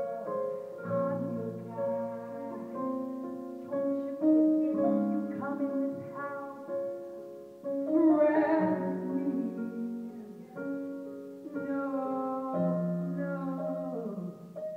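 Electronic keyboard playing sustained chords, with a woman's singing voice over it in places and a louder swell about eight seconds in.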